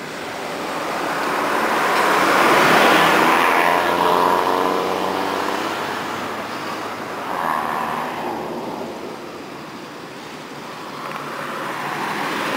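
Motor vehicles passing on a road: one swells to its loudest about three seconds in and fades away, and another approaches near the end.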